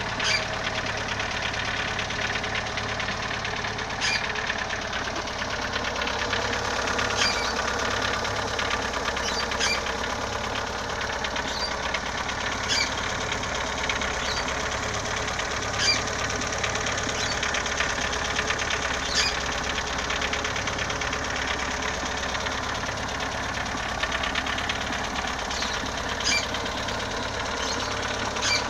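Chevrolet Chevette four-cylinder engine idling steadily, with a sharp knock at irregular intervals, one every one to four seconds. This is the engine noise that persists after a valve adjustment and a new timing belt, with bottom-end play already checked; its cause is still unknown.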